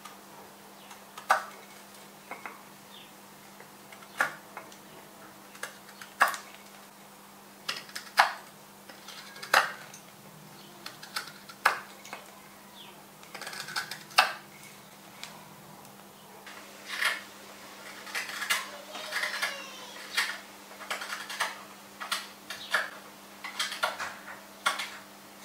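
Mora hook knife scooping out the bowl of a willow spoon: short scraping cuts into the wood, one every second or two at first, then coming faster and closer together in the second half.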